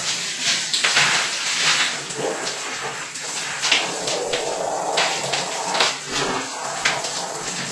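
Water splashing and churning in a jacuzzi tub: a steady hiss of moving water with many short, irregular splashes and knocks.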